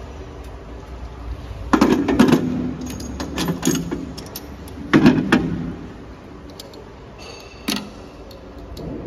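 Metal clunks and clinks from a vertical water pump being lowered onto and seated in the steel mounting flange of a test tank. A cluster of knocks comes about two seconds in, a loud knock at about five seconds and a sharp click near the end, over a steady low hum.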